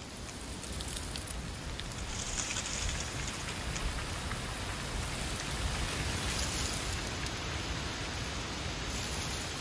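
Wind blowing through autumn trees, with dry leaves rustling in a steady crackly hiss over a low rumble.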